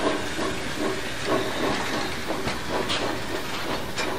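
Narrow-gauge steam locomotive working slowly while shunting wagons: a steady hiss of escaping steam with soft chuffs about three a second. A few sharp clicks of wagon wheels on the rails come in the second half.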